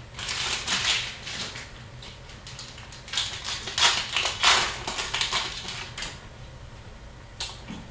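Hockey card packs and cards being handled: bursts of wrapper crinkling and cards rubbing and flicking, in two main spells with a short one near the end.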